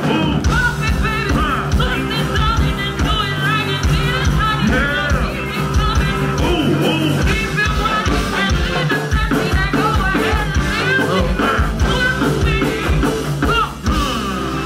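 Live band music: a singer over drums and bass, played continuously at a steady loud level.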